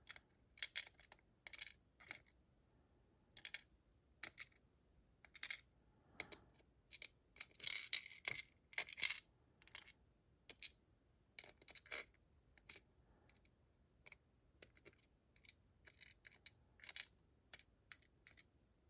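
Small metal clicks and ticks, irregular and quiet, as tweezers pick the driver pins and springs out of a GEGE pExtra lock cylinder, with a busier run of clicks about eight seconds in.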